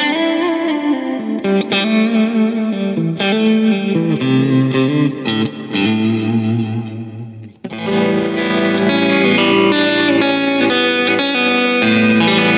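Fender American Ultra Luxe Vintage electric guitar played in a demo: phrases of picked single notes and double-stops. After a short break about seven and a half seconds in, it plays ringing sustained chords.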